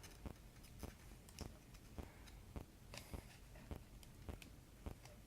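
Faint, irregular small clicks and taps, two or three a second, from handling the plastic parts of a metal detector's control box as it is put back together.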